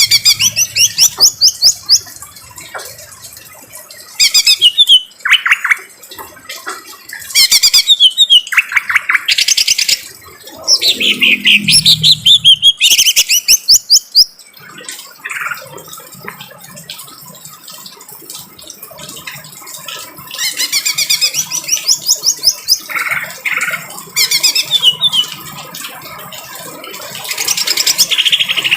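Cucak ijo (green leafbird) singing loud bursts of harsh, fast-repeated trilled notes and sweeping whistles, with short pauses between phrases.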